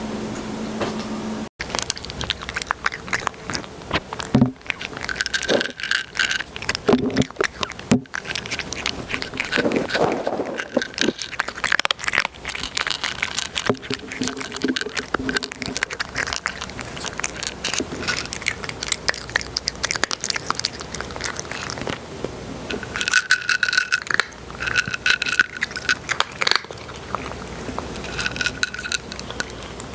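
Kitten chirping in short high notes, several close together near the end, over a steady crackling, scraping noise.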